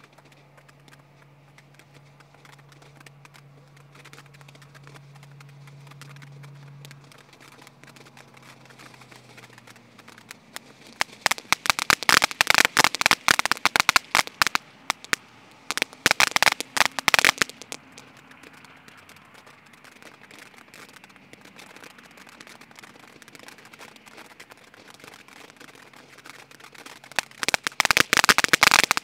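Cupid in Love firework fountain spraying sparks with a steady hiss. Loud, rapid crackling breaks out about a third of the way in, comes again briefly just after, and starts once more near the end.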